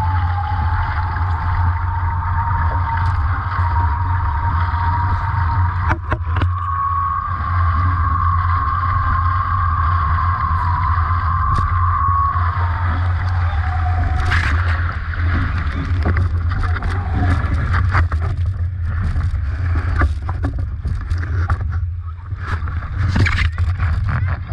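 Nacra 17 catamaran sailing fast, with wind and rushing water making a heavy, steady rumble. Through the first half a single high whine holds, rising slightly, then sliding down and fading about thirteen seconds in. The second half is broken by many sharp knocks and splashes.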